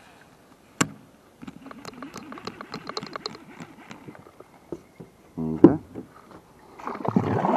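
Gear being handled aboard a kayak: a sharp knock, then a run of quick light clicks at about six a second, a short low pitched sound past halfway, and a rising rustle with water noise near the end.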